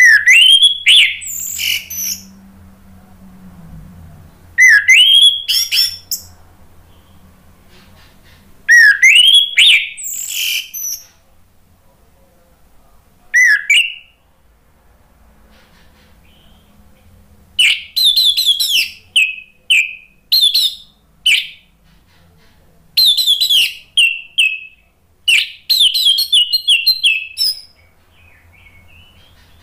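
Orange-headed thrush singing: four loud whistled phrases, each sweeping upward, spaced about four seconds apart, then a faster run of varied chattering phrases through the second half.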